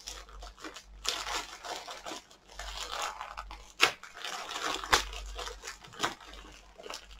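Clear plastic packaging crinkling and rustling as it is handled and unwrapped by hand, in irregular bursts, with two sharp snaps about four and five seconds in.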